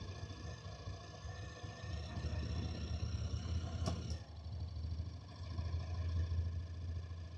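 Honda NC750X's parallel-twin engine running during a ride: a steady low hum with a thin high whine above it. A single sharp click about four seconds in.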